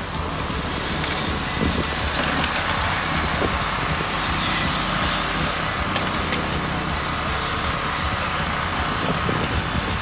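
Several 1/10-scale electric RC touring cars racing on an asphalt track. Their motors whine in rising and falling sweeps as they accelerate and brake, repeating every second or two over steady outdoor background noise.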